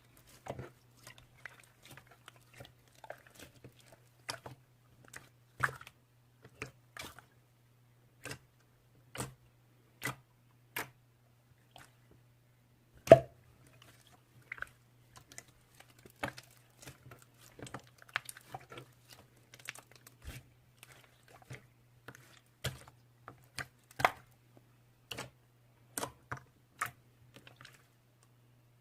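Clear slime being squeezed and poked by hand, making irregular sticky clicks and small pops, with one louder pop about halfway through. A steady low hum runs underneath.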